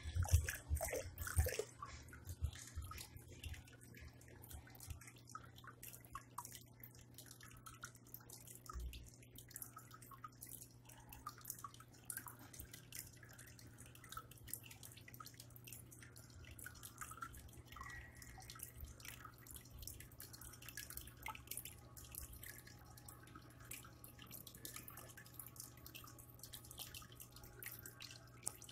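Homemade cat water fountain: a thin stream of water trickling and splashing into a plastic tub, with small dripping ticks over a low steady hum.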